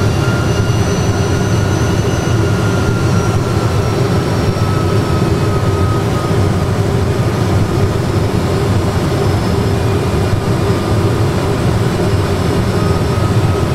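Airbus A320 full flight simulator's cockpit sound on approach: a steady low rumble of engines and airflow with a faint high engine whine that drifts slightly in pitch.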